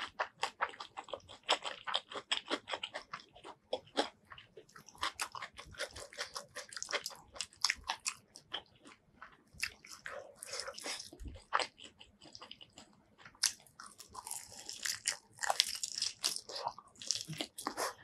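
Close-miked biting and chewing of crispy fried chicken: a dense, irregular run of crunches and crackles, with louder bites toward the end.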